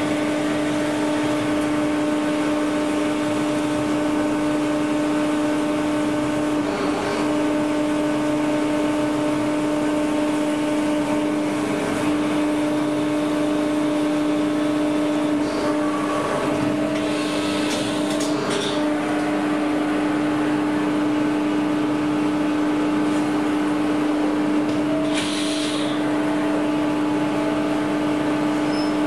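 Hardinge Superslant CNC lathe running, with a steady hum from its Siemens spindle and axis drives and motors, broken by a few brief hissing bursts around the middle and near the end.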